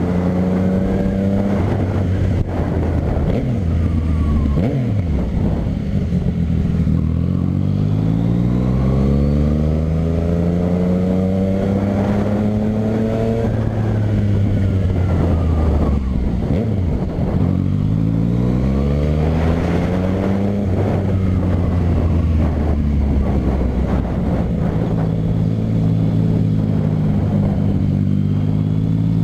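Yamaha MT-09 three-cylinder engine through a short Dogster aftermarket exhaust, its pitch climbing slowly for several seconds under acceleration and then dropping back. About two-thirds of the way through it climbs again more quickly, then settles to a steady note.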